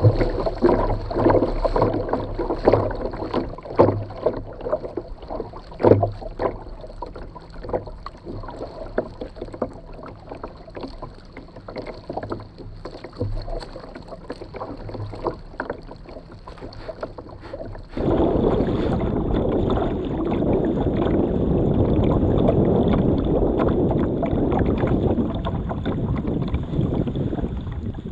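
Water slapping and splashing against a small boat's hull, heard close up, with irregular sharp splashes over a low hum. About two-thirds of the way in, the sound switches abruptly to a louder, steady rushing of water and wind.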